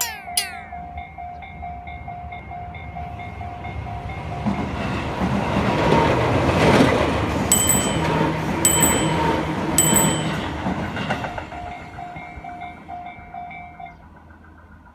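Japanese level-crossing warning bell ringing its repeating 'kan kan kan' while a train passes. The train's rumble swells and drowns the bell midway, with three sharp wheel clacks about a second apart. The bell is heard again as the train goes, fading near the end.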